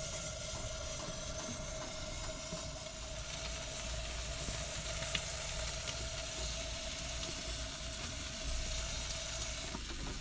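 Chicken drumsticks sizzling on a foil-lined sheet pan under an oven broiler: a steady hiss with faint crackles. A steady hum runs beneath it and stops near the end.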